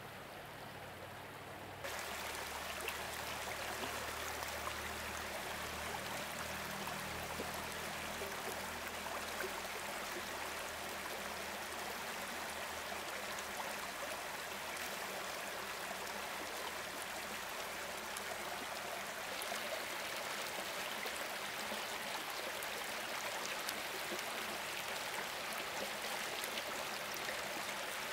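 Stream water running steadily, a continuous rush that steps up in loudness about two seconds in.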